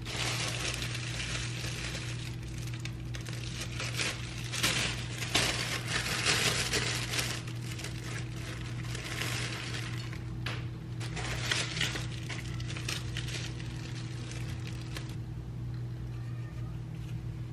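Plastic bread bag crinkling in irregular bursts as it is untied and slices of bread are pulled out, stopping about fifteen seconds in. A steady low hum runs underneath.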